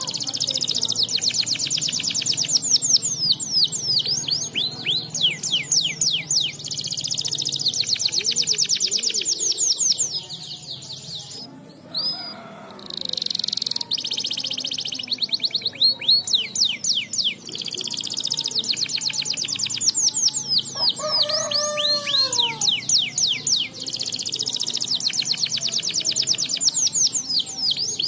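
Domestic canary singing: long fast trills and rolls of rapid high notes. The song breaks off briefly near the middle, and a few lower falling notes come about two-thirds through.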